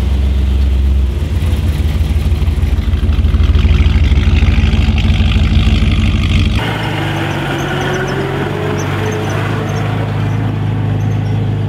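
Engines of 1957 Chevrolets running at low speed as the cars drive slowly past, a deep rumble. About two-thirds of the way in, the sound changes abruptly to a pre-war saloon car's engine rolling past, with a slowly rising tone.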